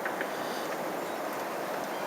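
Wisconsin River at flood stage rushing past in a steady, even roar of high water.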